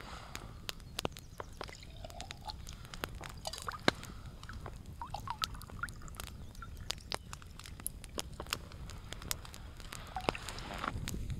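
Wood campfire crackling, with many sharp, irregular pops and snaps over a low steady rumble.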